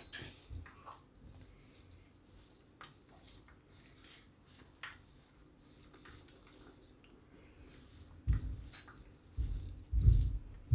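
Hands mixing crumbled millet flatbread with curd in a steel plate: soft squishing and crumbling, with a few dull thumps near the end.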